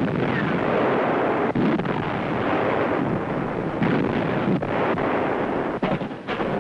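Naval gunfire and shell explosions in a continuous loud din, with several sharp reports breaking through it.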